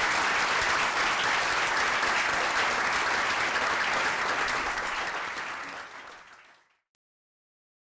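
Audience applauding, a steady clatter of many hands clapping that fades smoothly away near the end.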